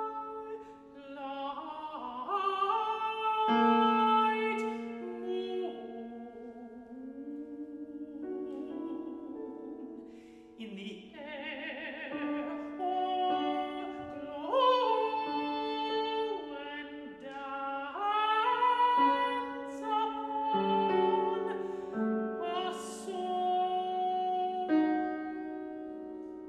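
Countertenor singing an art song with grand piano accompaniment: long held notes, some with a wide vibrato, over sustained piano chords.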